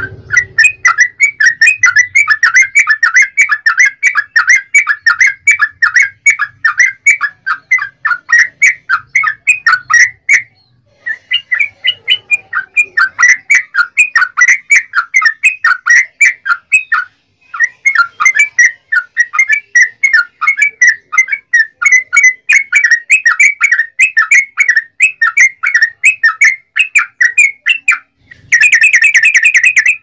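Yellow-vented bulbul (trucukan) singing its long rapid chatter song (ropel): short bubbly notes repeated about five a second in long runs. The runs break off for a moment twice, and the song ends in a denser, faster burst.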